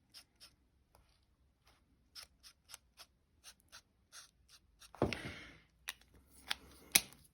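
Faint taps and clicks of marker pens on card as small die-cut light bulbs are coloured in, about two to three ticks a second. About five seconds in comes a louder rustle of about a second, and a sharp click just before the end.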